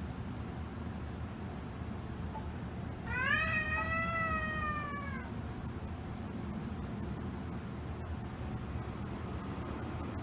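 A cat gives one long yowl of about two seconds, rising at the start and then slowly sinking, a threat call between two cats squaring off after a fight.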